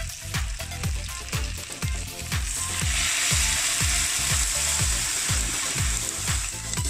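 Pork pieces sizzling in a stainless steel pot, the hiss growing loud about two and a half seconds in. Background music with a steady beat plays throughout.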